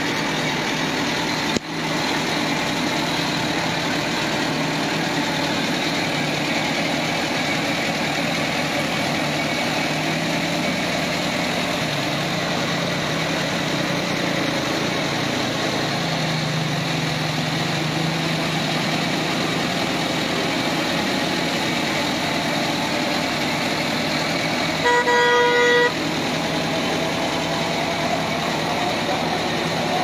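Massey Ferguson tractor's diesel engine running steadily while driving, heard from the driver's seat. A vehicle horn sounds once, a steady tone for about a second, near the end.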